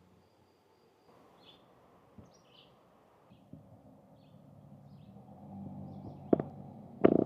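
A cricket trilling faintly, then a few scattered bird chirps. From about five seconds in, the low rumble of a vehicle engine builds and grows louder, with a couple of sharp knocks near the end.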